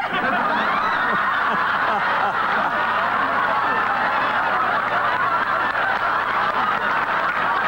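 Crowd cheering, laughing and shouting, many voices at once and steady throughout.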